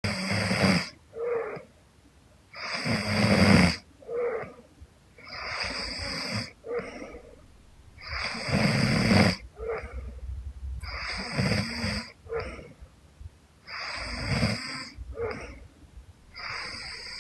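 A young woman snoring in her sleep: a long, noisy snore about every three seconds, each followed about half a second later by a short, higher-pitched snort. The sound cuts in suddenly out of silence.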